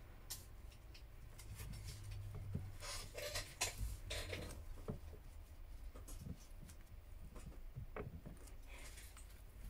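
Thin metal opening pick scraping along the edge of an HTC U Play's glued back cover as it cuts through the adhesive: faint scratching with scattered small clicks, busiest about three to four seconds in.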